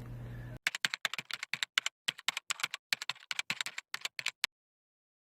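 Computer keyboard typing: a fast, irregular run of sharp key clicks that starts about half a second in and stops abruptly about four and a half seconds in.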